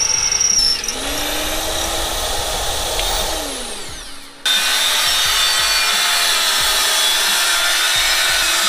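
Bench pillar drill running as it bores a hole through a metal bike sprocket, its motor pitch rising about a second in and winding down a few seconds later. Then, abruptly, an angle grinder cutting metal with a loud, steady hissing whine.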